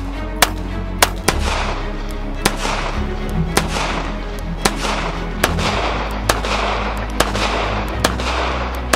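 A string of single pistol shots from a Browning BDA .380 ACP, about ten bangs roughly a second apart, several with a long trailing echo, over background music.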